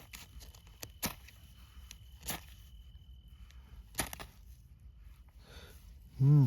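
Five or so sharp single clicks at irregular gaps of about a second, over a quiet background. Near the end a loud pitched hum starts, wavering evenly up and down.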